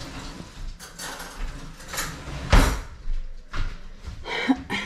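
A kitchen drawer sliding and cutlery rattling as a fork is fetched, with one sharp knock about two and a half seconds in.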